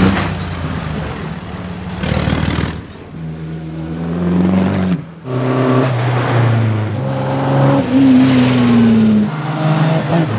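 Racing engines revving in a string of edited shots: steady engine notes, a sudden break about five seconds in, then an engine note that falls in pitch near the end.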